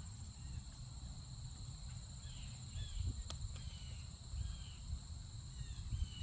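A steady, high-pitched insect chorus, with short falling bird chirps repeating every second or so and a low rumble underneath.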